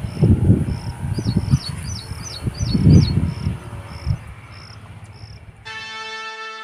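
A cricket chirps a short, high, regular pulse a little under twice a second, with a few quicker chirps for a couple of seconds, over gusts of wind rumbling on the microphone. Near the end the sound cuts abruptly to music.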